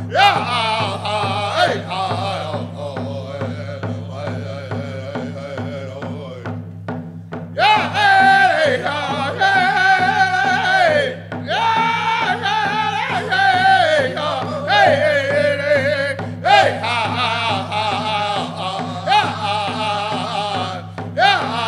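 Native American drum group singing to a steady beat on a large shared hand drum, with men's voices in high, wavering phrases that fall in pitch. The singing breaks off briefly about seven seconds in, then comes back louder.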